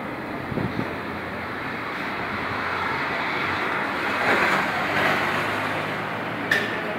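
Road traffic noise, swelling as a vehicle passes about four to five seconds in, with a sharp click shortly before the end.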